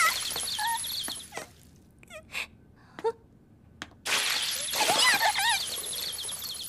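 Anime blood-spray sound effect: a loud hissing gush with wavering high tones over it that dies away after about a second and a half. After a quiet gap with a few clicks, a second hissing gush with wavering tones starts about four seconds in.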